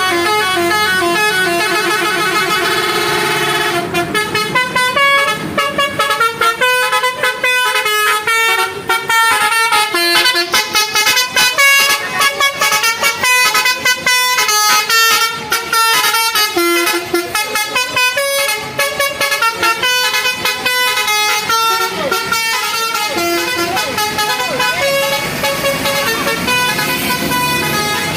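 Basuri musical horn on a bus playing a tune. Several horn tones sound together as a held chord for about the first four seconds, then break into quick runs of short notes that step up and down in pitch.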